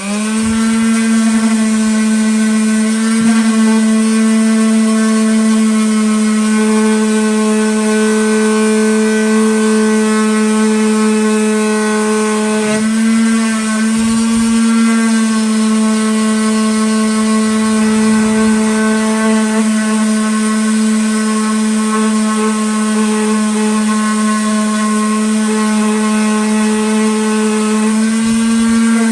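Electric power sander running steadily while sanding a rough ash wood round, its motor whine holding one pitch with brief dips about 13 and 15 seconds in as it is pressed into the wood. It starts up right at the beginning.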